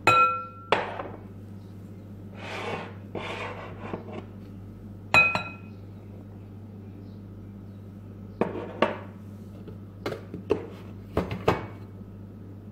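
A ceramic mug clinks against the rim of a glass mixing bowl twice, each time with a short ringing note, as flour is tipped from it into the bowl, with soft rustles of pouring flour in between. Later comes a run of lighter knocks of the mug against the bowl.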